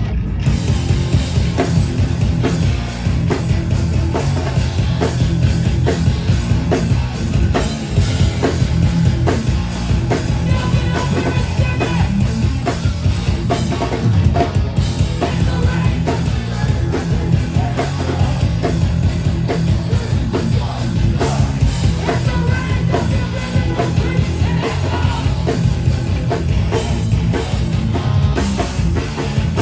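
Hardcore punk band playing live and loud: distorted guitars and bass over fast, driving drums, with a heavy, boomy low end.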